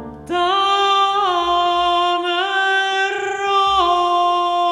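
Soprano voice singing alone, without accompaniment: a few long held notes that step up and down in pitch, coming in about a third of a second in.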